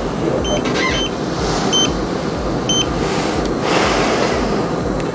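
Dental suction hissing steadily, with a few short, high electronic beeps from dental equipment and a couple of brief hissing bursts.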